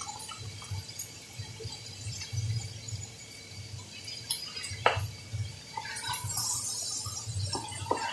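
A flour mixture is poured from a small glass bowl into a hot stainless steel pan of stir-fried vegetables. A single sharp clink of glass comes about five seconds in, followed by a brief hiss as the mixture hits the pan.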